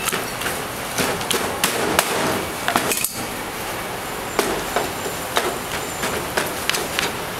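A knife chopping while a live turtle is butchered: irregular sharp knocks, several in quick succession about two to three seconds in, over steady background noise.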